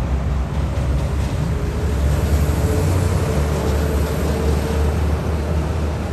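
Steady low rumble of outdoor city-street noise, from traffic and wind, with a faint steady hum in the middle.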